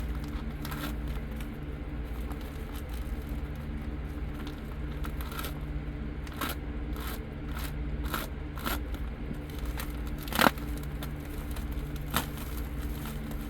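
Comic books in plastic sleeves being handled and shuffled: scattered crinkles and scrapes, busiest in the middle, with a sharp click about ten and a half seconds in and a smaller one near the end, over a steady low hum.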